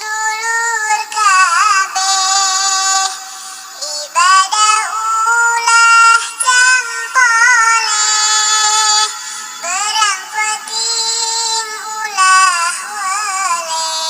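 High-pitched voice singing a Sundanese nadzom (devotional chant) melody, with wavering, ornamented runs between held notes.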